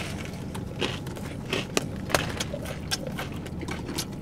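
Biting and chewing into a fried chicken sandwich topped with crunchy Takis rolled tortilla chips: a scattering of short crunches and mouth clicks over a steady low hum.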